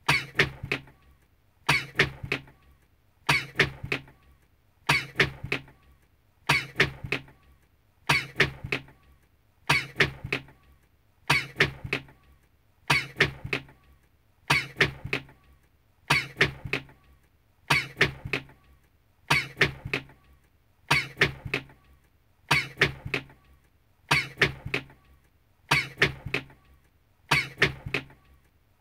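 A man's sneeze clip looped over and over, the same short 'achoo' repeating about every second and a half with a brief quiet gap between repeats.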